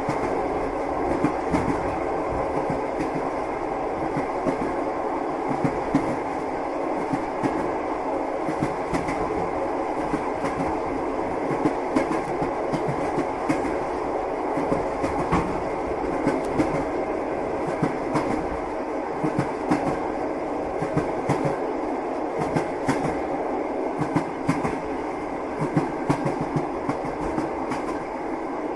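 Passenger train wheels running along the track, heard from inside a carriage: a steady rumble with frequent clicks of the wheels over the rail joints.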